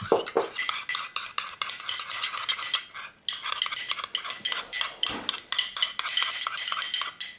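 A utensil stirring and scraping quickly around a bowl, mixing slime activator into slime base as the slime forms, with many small clicks and a short pause about three seconds in.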